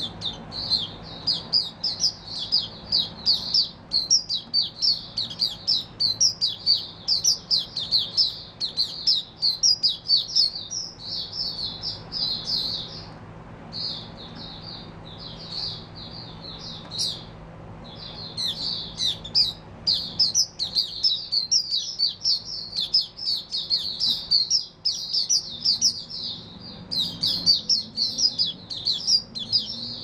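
Caged white-eye (mata puteh) singing a long, fast, high-pitched twittering song, broken by a couple of short pauses about halfway through.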